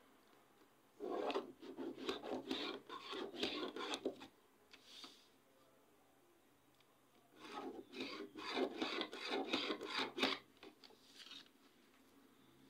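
Pen scratching across pattern paper as lines are drawn along a ruler, in two bursts of quick strokes, each about three seconds long.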